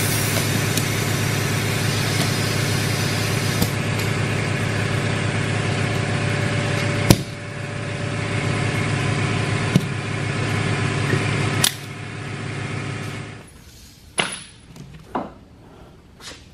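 A motor running steadily with a low hum, broken by sharp cracks at about 7 and 12 seconds, then stopping about 13 seconds in, after which there are only a few scattered knocks.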